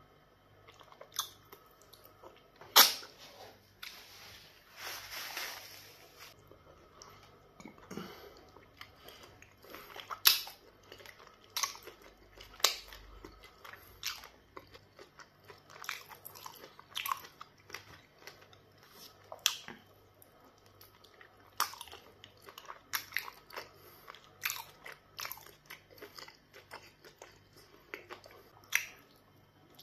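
Close-up wet eating sounds of pounded yam fufu with black soup eaten by hand: irregular sharp mouth smacks and squelchy chewing, the loudest smack about three seconds in. A faint steady low hum runs underneath.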